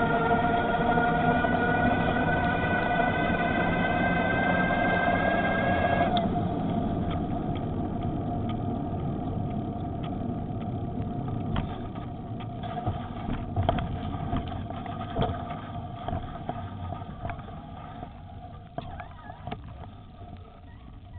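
Electric bicycle motor whining, its pitch rising slowly as the bike gathers speed, then cutting off about six seconds in. The bike coasts on with tyre and wind rumble that fades as it slows, with scattered faint clicks.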